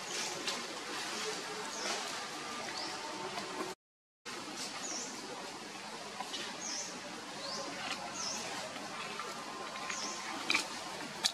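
Several short, high-pitched animal chirps, each dipping and rising quickly in pitch, over a steady outdoor hiss, with a couple of sharp clicks near the end. The sound drops out completely for about half a second roughly four seconds in.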